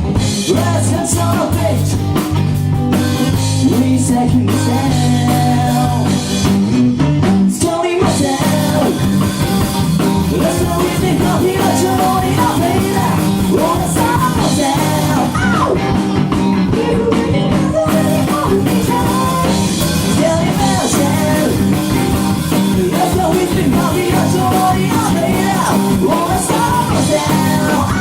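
Rock band playing live, with drum kit and guitar and a voice singing.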